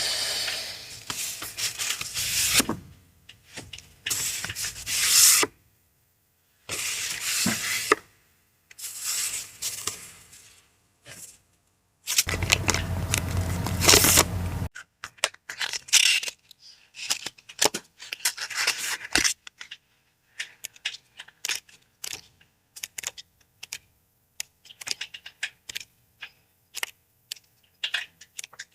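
Paper being handled: bursts of rustling and tearing over the first half, then many light, scattered taps and clicks.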